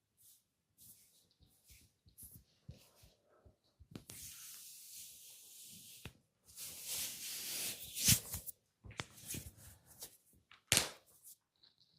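Massage hand sounds: hands brushing and rubbing over skin and hair, with a stretch of harder rubbing in the middle. Two sharp smacks, one about two-thirds of the way in and one near the end, are the loudest sounds.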